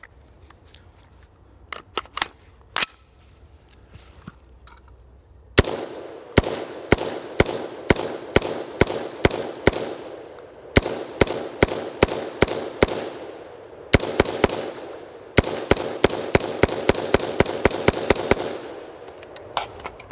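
A BCM 5.56 mm AR15 firing a long series of semi-automatic shots, some about half a second apart and some in quick strings of about four to five a second, each with a sharp crack and an echo. The rifle has not been cleaned or relubricated since the test began, and it keeps cycling.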